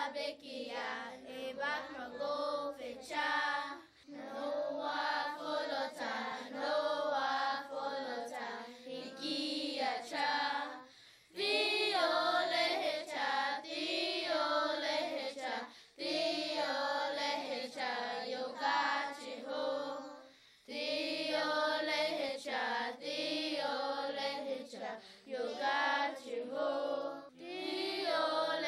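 A group of children singing a song in Choctaw, in sung phrases with short breaks between them.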